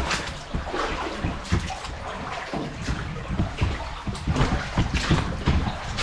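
Steps wading through shallow brook water, with irregular splashes and sloshes over the water running past.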